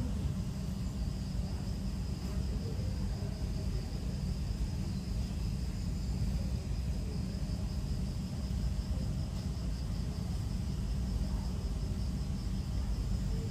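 Steady outdoor ambience: water running from a small waterfall into a pool over a steady low rumble, with insects trilling continuously and high-pitched.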